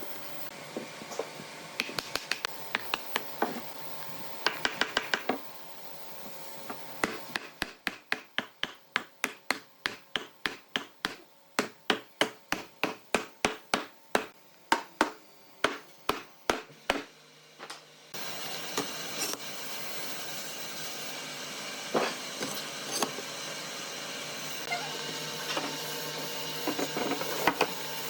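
Quick runs of sharp knocks on wood, like hammer blows, coming about three a second through the middle stretch. From about eighteen seconds in, a steadier background noise takes over, with only occasional knocks.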